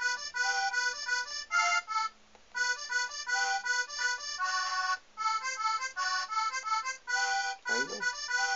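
A melodeon app on an Android tablet plays synthesized button-accordion notes, short chords tapped out in a quick, bouncy rhythm: the introduction of the tune, played straight through. The playing breaks off briefly about two seconds in and again about five seconds in, and a short sliding sound like a voice comes just before the end.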